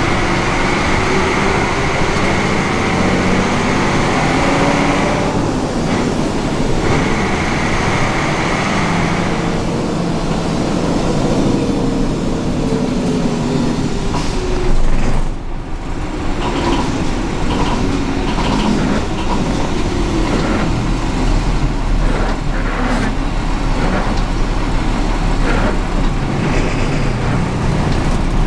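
Fiat 418 AC bus's diesel engine and manual gearbox heard from inside the cabin under way, the engine note rising and falling as it pulls through the gears. A steady high whine runs through the first ten seconds, breaking off briefly about five seconds in, and there is a brief louder burst about fifteen seconds in.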